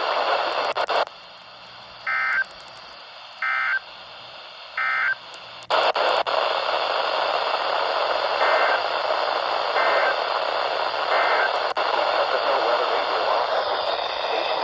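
NOAA Weather Radio EAS SAME digital data bursts of a required weekly test: three short buzzy two-tone bursts about a second and a half apart on a quiet channel, then, once the radio static hiss comes back, three more fainter bursts heard through the hiss.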